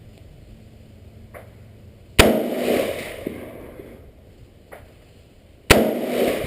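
Two gunshots from a 5.56/.223 AR-15 pistol, about three and a half seconds apart, each a sharp crack followed by a long echoing decay.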